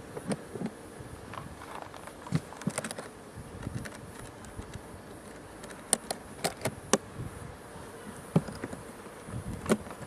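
Honeybees buzzing around a hive in a faint, steady hum. Scattered sharp clicks and taps come through it, the loudest about six to seven seconds in, from hands handling the plastic hive lid.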